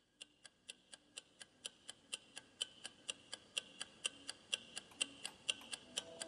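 Clock ticking at about four ticks a second, growing steadily louder, over a faint low drone, as the opening of a music track.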